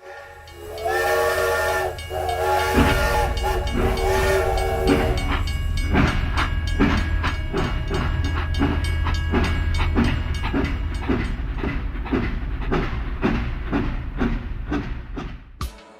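A train whistle sounding a steady chord of several tones for about four seconds, then a rhythmic chugging and clacking that gradually quickens.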